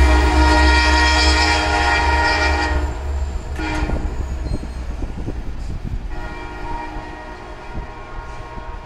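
A passenger train's horn, sounded from the lead locomotive as the train pulls away: one long blast, a short one, then another long one. Under it, the low rumble of the train on the rails fades away.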